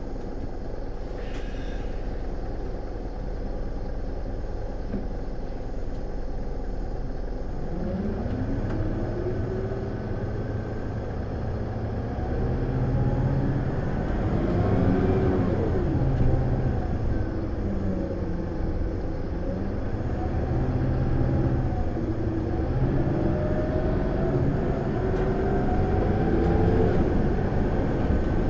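Isuzu Erga city bus's four-cylinder turbo diesel heard from inside the cabin, pulling hard in power mode. The engine pitch climbs, dips at a gear change and climbs again, with a high whine over the engine note: the odd noise that gives this bus its 'vacuum cleaner' nickname.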